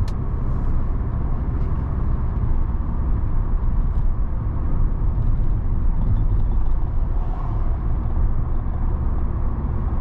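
A Ford car driving, heard from inside the cabin: a steady low rumble of engine and road noise.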